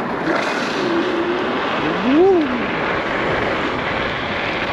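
Wind rushing over the microphone with road noise while riding an electric scooter at speed on a rough road. About two seconds in there is a brief hum that rises and then falls in pitch.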